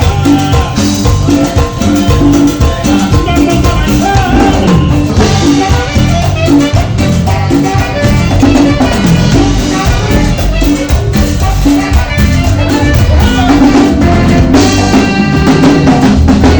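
Live band playing a Latin dance number, with drum kit and percussion keeping a steady beat.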